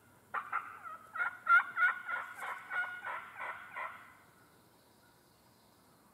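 Turkey calling: a run of about ten loud notes over some three and a half seconds, loudest about a second and a half in, then it stops.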